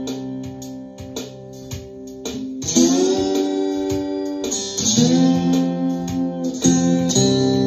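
Ovation Koa acoustic-electric guitar in open C tuning, played with a ceramic slide through its onboard preamp: ringing chords, with three fresh chords sliding up into pitch in the second half. A steady drum-machine beat runs underneath.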